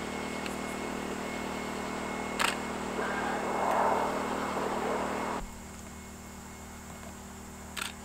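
Camera shutter clicking twice, once about two and a half seconds in and again near the end, over the steady hum of a portable generator powering the lamp.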